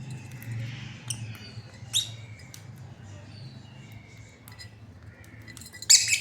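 Lovebirds chirping: a string of small chirps and clicks, broken by a loud shrill screech about two seconds in and another near the end.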